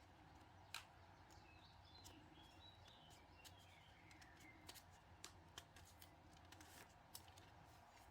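Faint birdsong: small birds chirping through an open window, with a scatter of short light clicks and taps close by.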